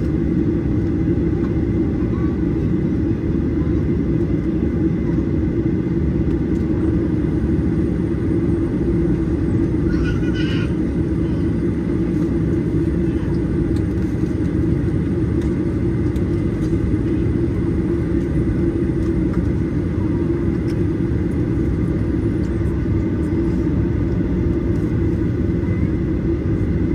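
Steady cabin noise of a Boeing 737-800 heard from inside the cabin: its CFM56-7B jet engines and the airflow make a constant low rumble, with a faint steady high whine above it.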